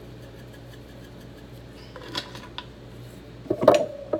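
Kitchen utensils clinking and knocking, typical of measuring spoons and spice containers being handled: a couple of light knocks about two seconds in, then a louder clatter near the end, over a steady low hum.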